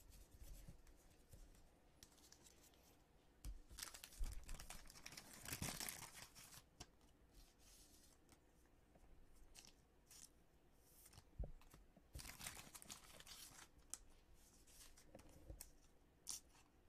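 Faint tearing and crinkling of a baseball card pack's wrapper being torn open and handled, in a few bursts, the loudest about four to six seconds in.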